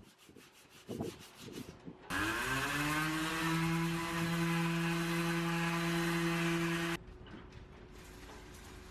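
A corded electric power sander spins up about two seconds in to a steady hum and sands the fairing compound on a fiberglass hull for about five seconds, then cuts off suddenly. Before it, a few faint rubbing strokes of hand sanding.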